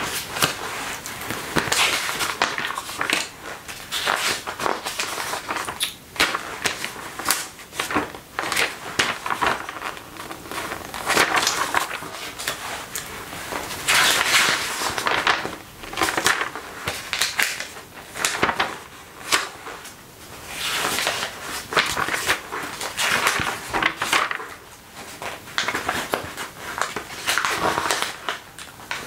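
Glossy magazine pages being turned and handled: crisp paper swishes and crackles, coming irregularly every second or two.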